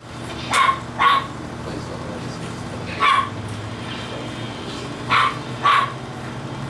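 English Bulldog puppies giving short, high yipping barks: two close together about a second in, one about three seconds in, and two more near the end.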